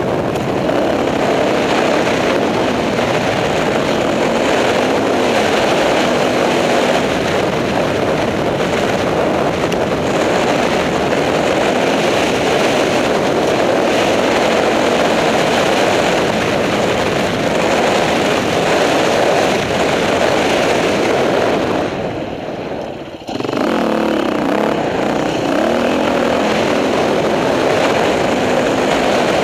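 Dirt bike engine running steadily on a trail ride, mixed with wind noise. The sound eases off for about a second roughly three quarters of the way through, then picks back up.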